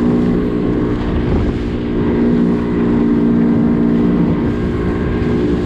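A skiff's outboard motor running steadily under way, a constant engine hum over the rush of wind and water.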